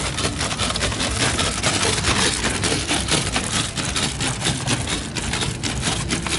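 Rolling noise of riding over hard-packed desert ground: a dense, continuous rattle and crunch full of small irregular clicks, with wind buffeting the microphone.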